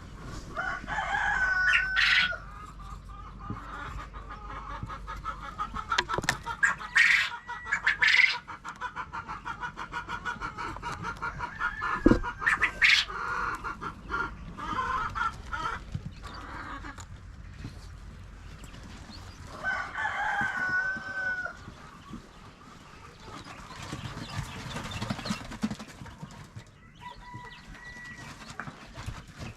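Backyard chickens clucking, with loud drawn-out calls, crows among them, breaking out every few seconds.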